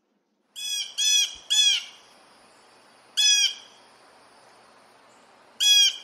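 Blue jay giving harsh calls: three in quick succession, then two more singly, each short, over a faint steady hiss.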